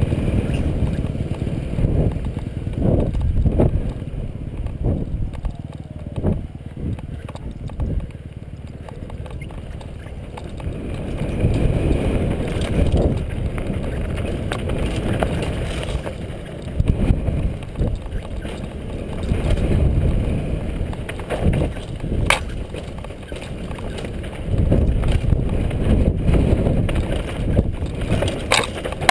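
Mountain bike riding fast downhill on a dry dirt trail: tyres running over loose dirt and stones and the bike rattling, with sharp knocks over bumps and a low rumble of wind on the camera's microphone that rises and falls in surges.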